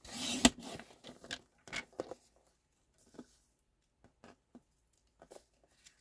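Card stock being handled on a craft table: a short rasping slide with a sharp click about half a second in, then scattered light taps and paper rustles.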